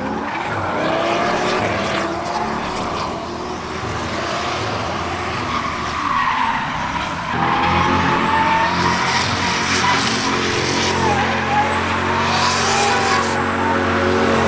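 V8 engine of a drifting C5 Corvette revving up and down while its rear tyres squeal and skid, the tyre noise loudest in the second half.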